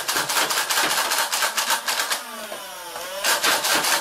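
Nerf Hail-Fire flywheel dart blaster firing foam darts in rapid succession, about seven or eight shots a second, over the whine of its spinning flywheel motors. The shots stop for about a second past the middle, leaving only the motor whine shifting in pitch, then start again.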